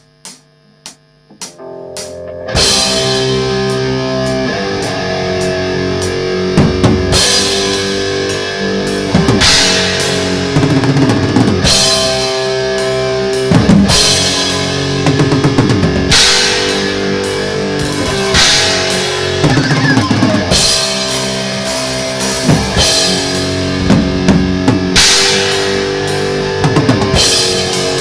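Thrash metal band playing: a few sharp clicks like a count-in, then distorted electric guitars, bass and a pounding drum kit kick in about two and a half seconds in, with cymbal crashes every couple of seconds.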